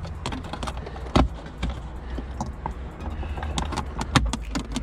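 Scattered small clicks and taps of hands working at the plastic trim around a car's rear-view mirror and rain sensor. One sharp click comes just over a second in, and a quick run of clicks near the end, over a low steady hum.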